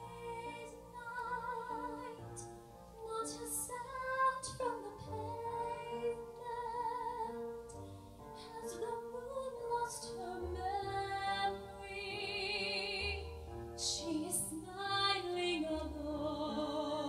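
A woman singing a slow ballad live into a handheld microphone, holding long notes with clear vibrato, over soft keyboard accompaniment.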